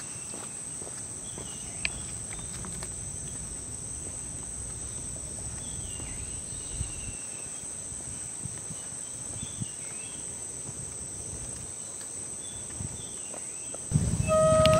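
A steady, high-pitched chorus of insects in a mangrove swamp, with faint short chirps and a few soft knocks underneath. Flute music comes in near the end.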